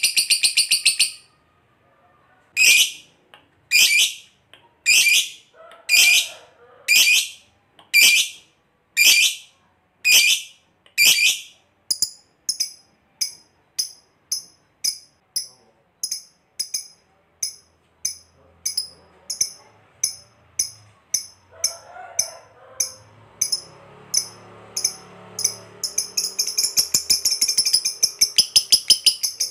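Lovebird calling: a short burst of shrill chatter, a pause, then sharp high-pitched calls about once a second that quicken to two or three a second and run into a rapid continuous chatter near the end, the long 'ngekek' song that keepers prize.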